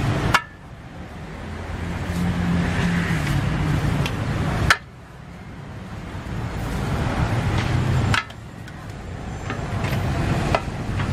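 Metal spatulas scraping and knocking against a large wok as a pan of noodles is stir-fried, over a steady rumble of road traffic. The sound breaks off suddenly three times, each with a sharp click, then builds back up.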